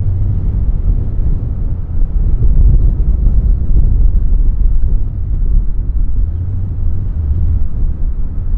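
Boeing 757-200 landing, its jet engines heard as a loud, steady low rumble that swells and fades slightly.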